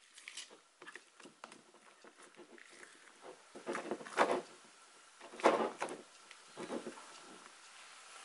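Red silicone spatula folding food colouring into stiff meringue in a plastic bowl: irregular soft, wet squelching and scraping strokes, loudest in a few bursts past the middle.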